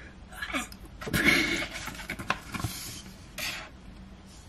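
Paper and card rubbing and rustling as album photo cards and pages are handled, in a few short scrapes, the longest about a second in.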